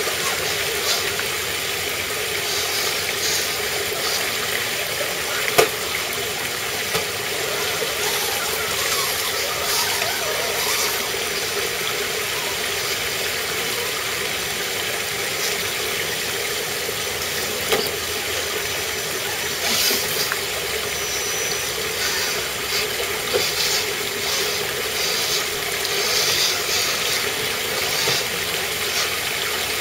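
Small stream cascading over rocks, a steady rush of water, with a few sharp knocks, the loudest about five and a half seconds in.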